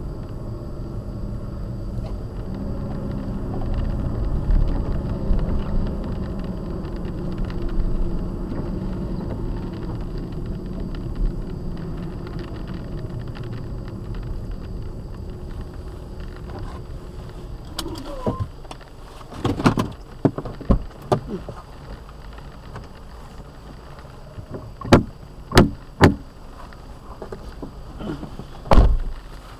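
Car running and rolling slowly on wet pavement, heard from inside the cabin as a steady low rumble that eases off after about 17 seconds. From about 18 seconds on come several short, sharp knocks, the loudest near the end.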